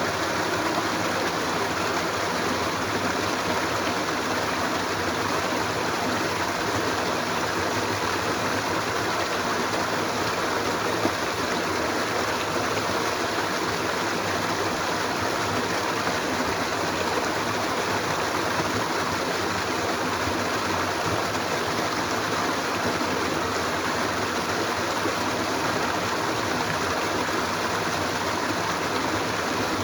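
Flowing stream: running water with a steady, unbroken sound.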